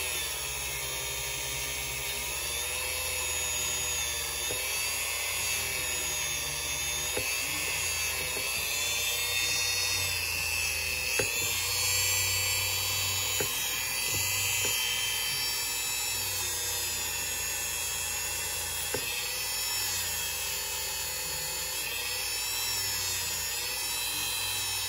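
Dremel rotary tool spinning a polishing wheel against a model-train motor's commutator, its whine wavering up and down in pitch as the wheel is pressed on and eased off, with a few light ticks.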